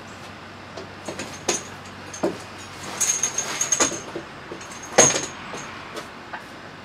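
Scattered knocks, clinks and a short run of rattling as a side section of a camouflaged boat blind is worked loose from an aluminium jon boat. There is a dense rattle about three seconds in and the loudest knock about five seconds in.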